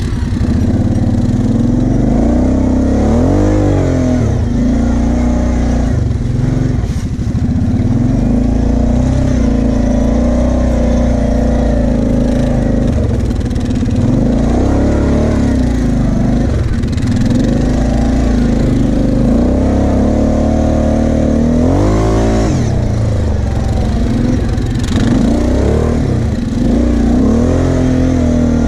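Kawasaki KFX 700 V-Force quad's V-twin engine running under load, revving up and dropping back again several times as the throttle is worked over the sand hills.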